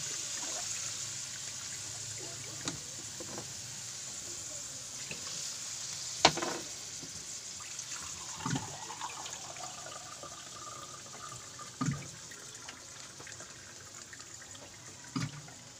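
Oil in a pan on the stove sizzling with a steady hiss that slowly dies down, with a few sharp clicks of a cooking utensil, the loudest about six seconds in.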